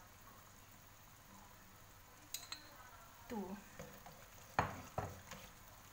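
A metal spoon stirring chicken-feet stew in a wok, knocking against the pan, with two sharp clinks near the end. Under it is a faint steady sizzle of the liquid simmering.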